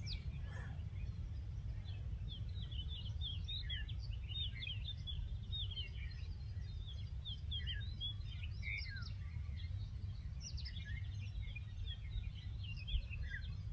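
Small birds chirping and twittering over and over, high-pitched, over a steady low rumble of outdoor background noise.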